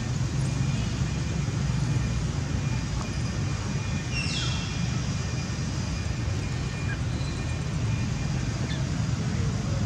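Steady low outdoor rumble with an even background hiss and a faint steady high tone, and a single short high-pitched call sliding downward about four seconds in.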